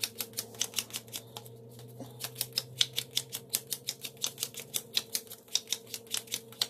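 Playing cards dealt one at a time off the deck onto a cloth mat, a quick click for each card, about five or six a second, with a short pause about one and a half seconds in. A steady low hum runs underneath.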